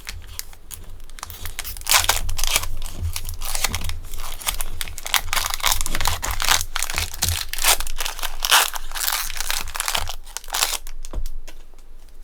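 Foil wrapper of a Pokémon card booster pack crinkling and tearing as it is opened, in irregular crackly bursts that die down near the end.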